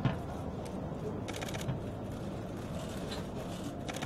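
Steady outdoor street background noise, with a single sharp bang right at the start and two brief bursts of rapid clicking, about a second and a half and about four seconds in.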